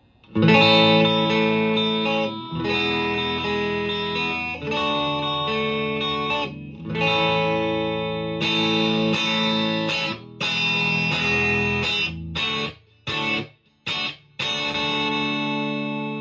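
PRS S2 Standard 24 electric guitar played through an amplifier with both pickups in single-coil (split) mode, middle position: a run of ringing chords, then a few short, cut-off chords near the end and a last chord left to ring.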